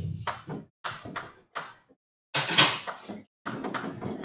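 Writing on a board: a run of short strokes with brief breaks between them.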